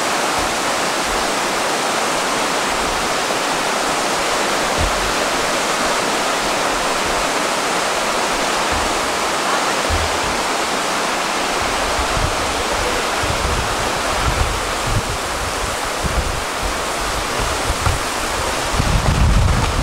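A mountain river rushing steadily over rocks, with low wind buffeting on the microphone growing stronger over the last few seconds.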